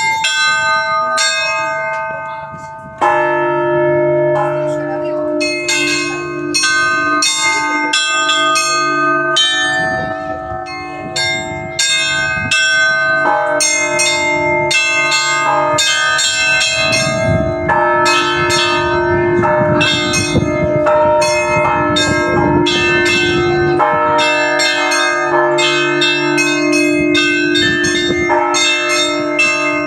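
Russian church bells rung in a full peal: small high-pitched bells struck in a quick, rhythmic pattern over ringing middle bells, with a deeper, heavier bell struck every few seconds.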